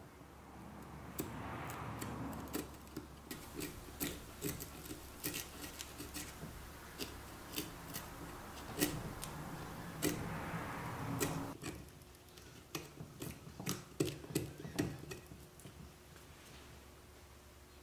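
Small hand carving blade scraping and picking at the dry deadwood of a shimpaku juniper trunk while carving shari. It gives irregular sharp ticks and clicks, with stretches of soft scraping.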